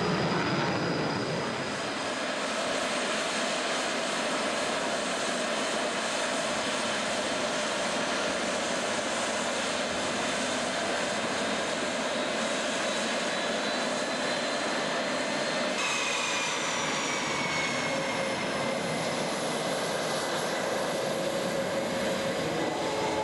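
F/A-18 twin jet engines running: a steady jet noise with a whine. About two-thirds of the way in the sound changes to the whine of engines at idle on the ramp, with high tones gliding slowly in pitch.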